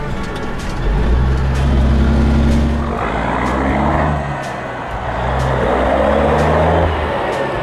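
Peterbilt semi-truck's diesel engine pulling away under heavy throttle. The note holds steady, sags about four and a half seconds in as if at a gear change, then pulls again.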